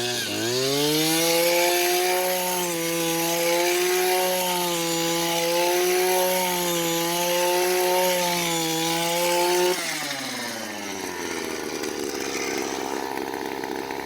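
Small petrol engine of a powered post-hole auger revving up and running at high speed with a slight waver while boring into the ground. About ten seconds in it drops back to a slower, lower run.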